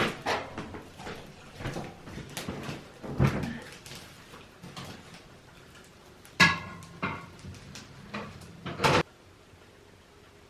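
A series of sharp knocks and clatters, like a door or cupboard being handled, loudest about six and a half seconds in and again near nine seconds, after which it goes quiet suddenly.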